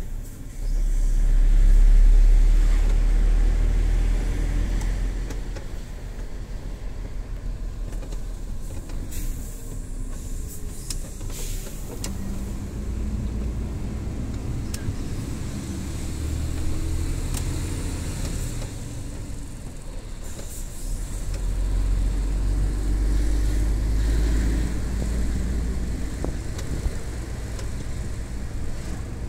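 MAN TGS 18.400 truck's six-cylinder diesel engine heard from inside the cab while driving, a deep drone that swells about a second in and again after about twenty seconds as the engine pulls. A few light clicks come near the middle.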